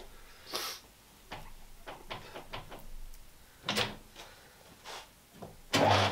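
Lathe chuck being turned by hand, with a scatter of light metal clicks and scrapes. A steady hum starts suddenly near the end.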